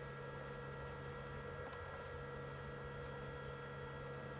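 Steady low electrical hum with a few faint constant tones above it and nothing else: background room tone with no handling or cutting sounds.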